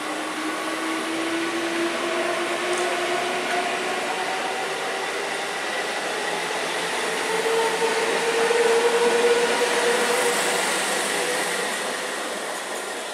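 ICF-built electric multiple unit (EMU) local train pulling through a station, its traction motors whining with a slowly rising pitch as it gathers speed over the rush of wheels on rail. Loudest about nine seconds in, then easing as it moves off.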